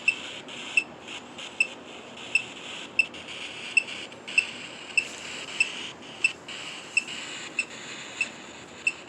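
Small electronic device giving short, high beeps at an even pace, a little more than one a second, over a faint steady hiss.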